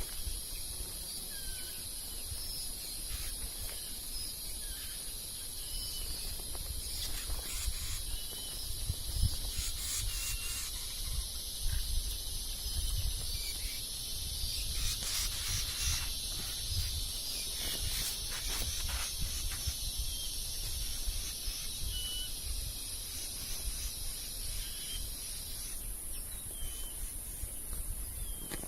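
Tropical forest ambience: a steady high-pitched insect drone, with a second, lower insect chorus that stops suddenly near the end, and scattered short bird chirps over a low rumble.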